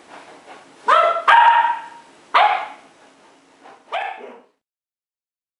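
A ten-week-old Cardigan Welsh Corgi puppy barking four times in high-pitched yips, the second bark the longest.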